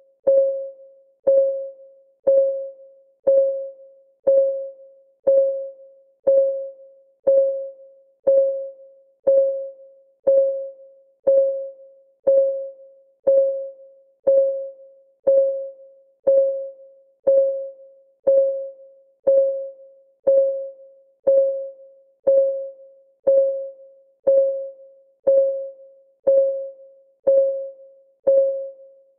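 Countdown timer's clock-ticking sound: one short, pitched tick each second, each dying away quickly, in a steady unbroken rhythm.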